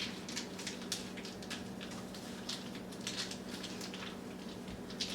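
Kitchen food-preparation handling noises: irregular soft clicks, rustles and squishes of ingredients and packaging being worked by hand, over a steady low hum.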